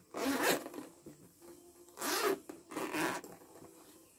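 Zipper of a hard-shell camera carry case being pulled open in three short rasping strokes.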